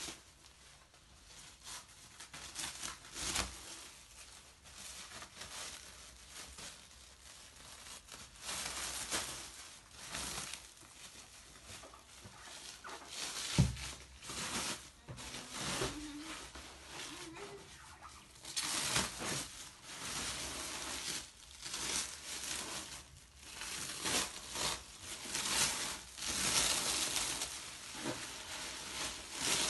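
Plastic cling wrap being pulled and torn off a rolled mattress by hand, crinkling and rustling in irregular bursts that get busier in the second half. A single sharp thump comes about halfway through.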